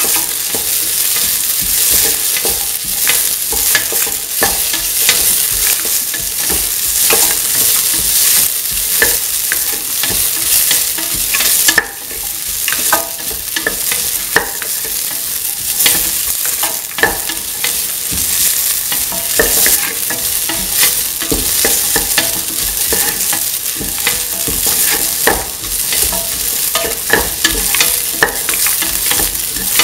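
Sliced shallots and onion sizzling in hot oil in a metal pan while being stirred and sautéed, with a steady hiss and frequent short scraping clicks against the pan.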